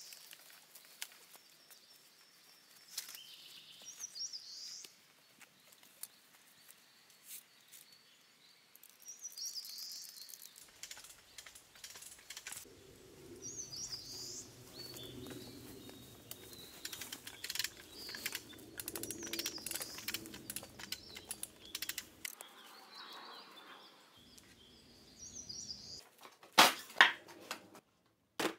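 Small birds calling with short high chirps every few seconds in woodland, over scattered light clicks and rustling. A few loud, sharp knocks come near the end.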